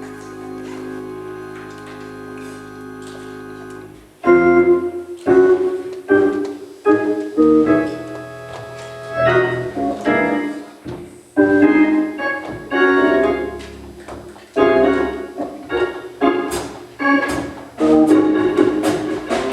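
Church keyboard music: a steady held organ chord, then from about four seconds in a run of loud struck piano chords, each fading before the next, as the praise team's selection begins.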